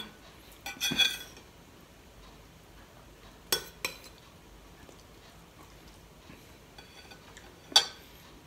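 Metal spoon clinking against a ceramic soup bowl: a clink about a second in, two light clinks about three and a half seconds in, and a sharper, ringing clink near the end.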